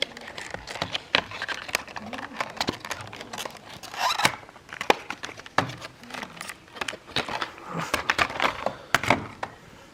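Packaging being handled and opened: crinkling, rustling and tearing, with many small irregular clicks.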